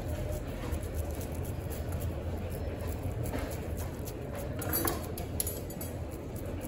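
Wet minced meat squishing as a hand squeezes and presses it along a flat metal skewer, over a steady low hum, with a couple of sharp clicks about five seconds in.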